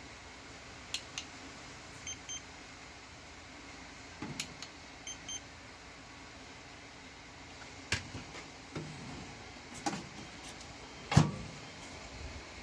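Hitachi MRO-TS8 steam oven's control panel giving two pairs of short high beeps as it responds to button presses, among scattered clicks and knocks of handling, the loudest a sharp knock near the end.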